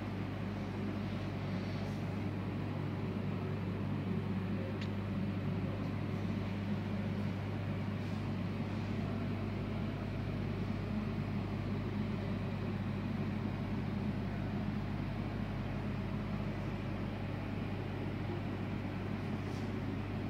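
Steady low hum with a constant background hiss, and a faint click about five seconds in.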